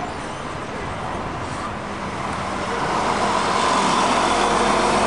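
Traffic noise from a vehicle drawing near, growing louder about halfway through and then holding steady.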